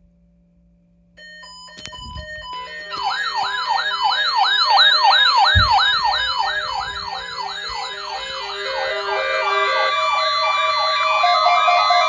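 Several NOAA weather radio receivers sounding their alert alarms at once for the warning-alarm test. Beeping starts about a second in, then siren-like warbles sweep up and down about twice a second over the beeps, and a steady alert tone joins near the end. A couple of low thumps are heard as the radios are handled.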